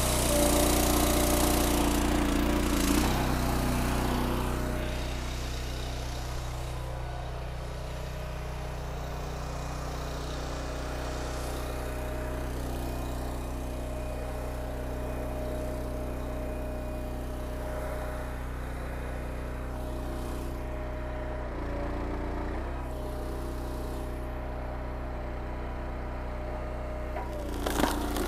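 Petrol engine of a Wolf Ridge hydraulic log splitter running steadily, labouring under load for the first few seconds and again near the end as the ram drives the wedge into a big oak round. A few sharp cracks of the wood giving way come at the very end.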